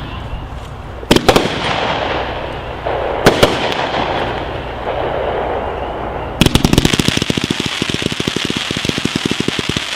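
USA Conqueror consumer firework going off: sharp bangs about a second in and again about three seconds in, each trailed by crackling, then from about six seconds a rapid string of pops, many a second.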